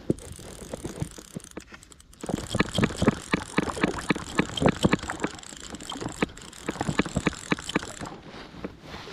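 Fly reel's click-and-pawl ratchet clicking as line is wound in on a hooked rainbow trout. A quick run of sharp clicks, several a second, starts about two seconds in and stops about a second before the end.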